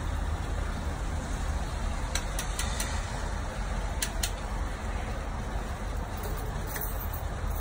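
Steady rain falling, an even hiss with a low rumble underneath, with a few sharp ticks from about two to four seconds in.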